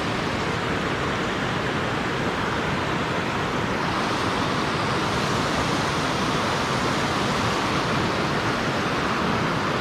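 Steady rush of flowing river water, an even noise with no breaks or changes.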